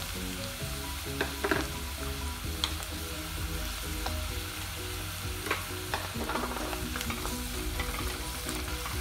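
Sliced shallots sizzling in hot oil in a pot while a wooden spoon stirs and scrapes through them, with a few light knocks of the spoon.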